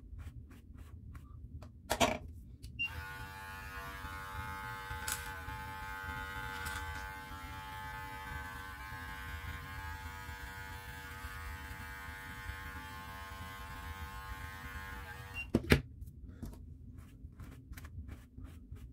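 Electric beard clippers running with a steady buzz for about twelve seconds as they trim the beard, with a sharp click just before they start and another as they stop. Before and after, a bristle brush makes quick rustling strokes through the beard.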